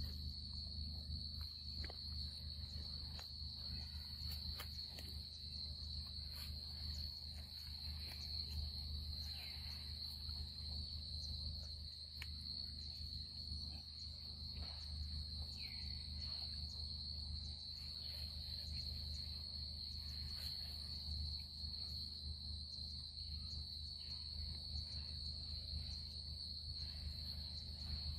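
Steady, high-pitched drone of an insect chorus, with a low rumble underneath and faint scattered clicks.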